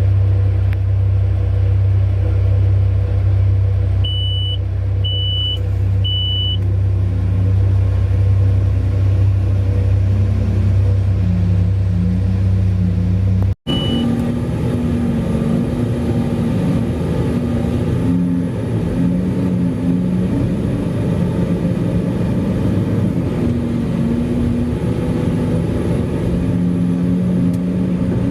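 Heavy mining diesel engines of a large excavator and haul truck running under load, with three short high beeps a few seconds in. Halfway through the sound cuts out abruptly, and a different engine note follows that rises and falls as the machines work.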